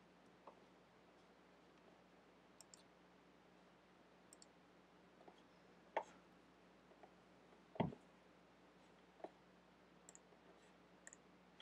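Scattered clicks of a computer mouse over a faint steady hum, about eight in all and irregularly spaced. One about two-thirds of the way through is louder, a duller knock with a low thud.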